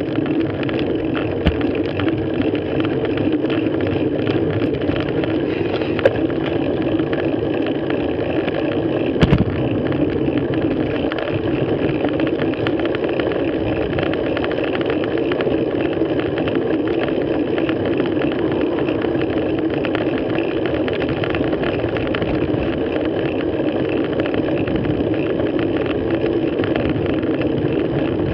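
Steady wind and tyre noise from a road bike moving along tarmac, picked up by a handlebar-mounted action camera: a constant rushing hum. A few brief knocks stand out, the loudest about nine seconds in.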